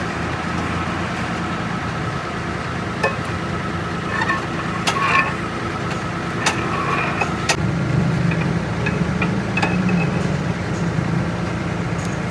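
An engine running steadily, with sharp metallic clinks and knocks at irregular moments over it.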